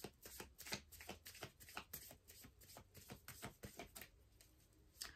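Deck of tarot cards being shuffled by hand: a quiet, quick, irregular run of card flicks and snaps that stops shortly before the end.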